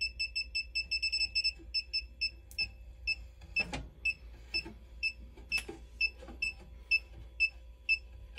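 Klein Tools ET310 breaker-finder receiver beeping as it is swept along a row of circuit breakers, hunting for the one that carries the transmitter's signal. The short high beeps come quickly at first, then settle to about two a second. Two faint knocks come about a third and two thirds of the way through, as the receiver bumps the breakers.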